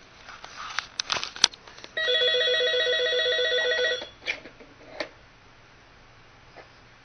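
A corded landline phone's electronic ringer rings steadily for about two seconds, then cuts off suddenly as the handset comes off its cradle. Plastic clicks and knocks from a cat pawing at the handset come before and after the ring, with the sharpest click about one and a half seconds in.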